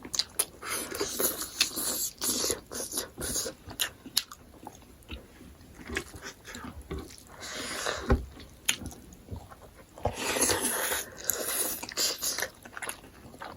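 Close-miked chewing and biting of smoked pork: wet, crunchy mouth sounds with many short clicks and smacks, in a few longer stretches of chewing.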